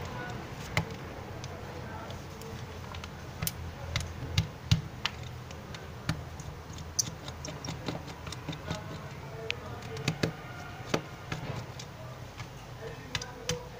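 Small screwdriver backing out the tiny housing screws of a Micromax D303 phone: scattered light clicks and ticks at irregular intervals as the bit seats in the screws and the screws come free.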